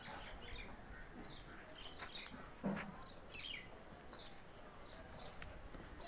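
Small birds chirping, many short falling notes in quick succession, with one short low thump about two and a half seconds in.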